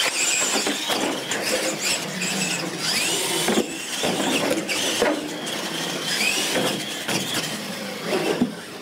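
Brushed electric motors and gearboxes of two RC monster trucks running flat out in a race. The whine starts suddenly and rises in pitch several times as the trucks speed up.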